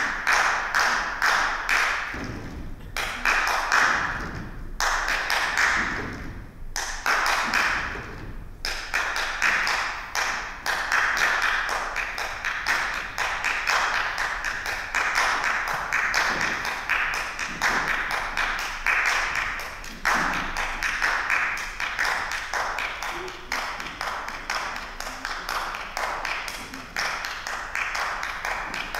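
Dancers clapping their hands in a fast, even rhythm with sharp taps, in short bursts with brief breaks at first, then without a break from about nine seconds in.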